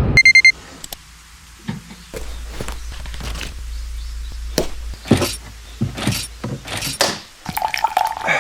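A quick run of electronic beeps, then scattered clinks and knocks of small things being handled, over a low steady hum.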